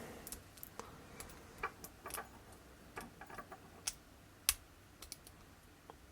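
Faint, irregular small clicks of a lock pick working the pins of an Am-Tech T0706 padlock held under a tension wrench, one sharper click about four and a half seconds in. The lock is fitted with spool pins and is making crunching noises as it is picked.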